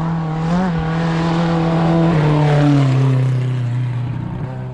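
Rally car engine running hard at high revs as it goes by on a special stage, holding one pitch, then dropping in pitch twice in the middle and fading slightly toward the end.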